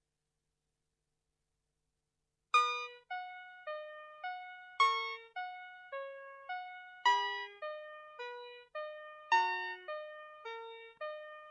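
VTech Schlummerschnuffi toy playing a built-in classical tune in simple electronic tones, starting about two and a half seconds in: evenly paced notes, about two a second, with a louder note on every fourth beat.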